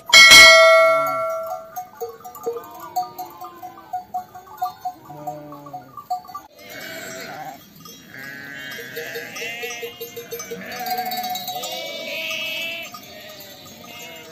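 A loud bell-like chime rings out at the start and dies away over about two seconds. A flock of sheep then bleats, with many overlapping bleats from about halfway through.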